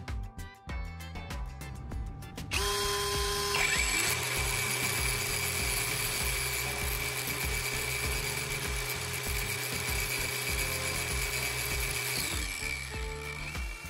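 Background music, then about two and a half seconds in an angle grinder and a cordless drill start up. The spark plug's end, spinning in the drill, is ground against the grinder's disc: a steady whine with a grinding hiss, which winds down near the end.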